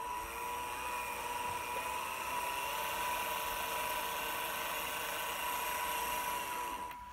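Motor of a radio-controlled model of the ship Smit London whining steadily under throttle. It winds up at the start and winds down as it cuts off about seven seconds in.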